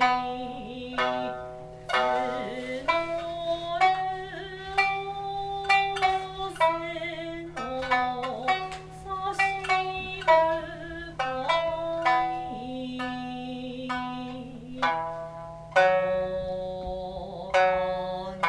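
Shamisen played in sharp plucked strokes under a singer's long held notes that waver slightly: traditional accompaniment for a geisha dance.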